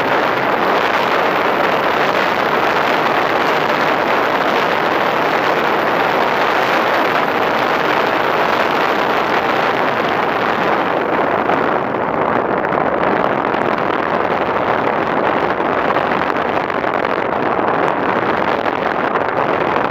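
Air rushing over the onboard camera's microphone of a radio-controlled model plane in flight: a steady, loud hiss that turns duller about halfway through as the plane comes down low.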